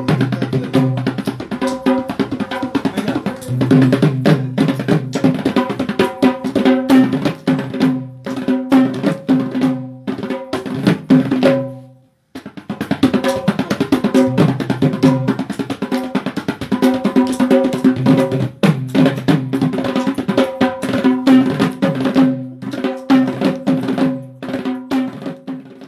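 Kandyan geta bera, the double-headed barrel drum of Kandyan dance, played with bare hands in fast, dense rhythmic strokes with a ringing pitched tone. The playing breaks off for a moment about halfway through, then resumes.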